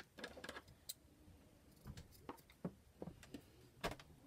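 Scissors snipping ribbon and lace: a scatter of faint, sharp snips and clicks at irregular spacing.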